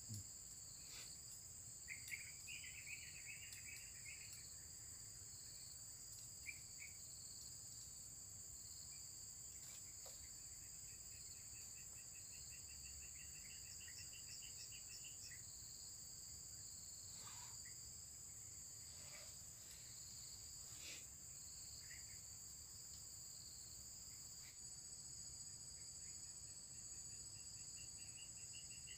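Faint, steady high-pitched drone of insects, with a faster pulsing trill coming in now and then and a few short falling whistles near the middle.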